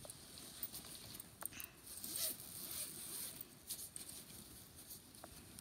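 Zipper on a soft-sided fabric pet carrier being drawn open, faint, with fabric rustling and a few light clicks.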